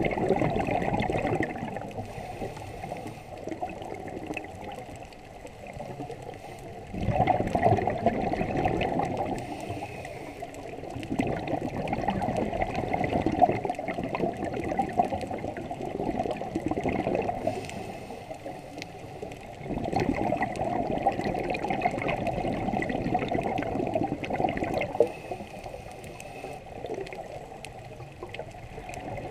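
Scuba diver breathing underwater through a Scubapro regulator: exhaled bubbles gurgle and rumble in swells every few seconds, with quieter stretches of regulator hiss between breaths.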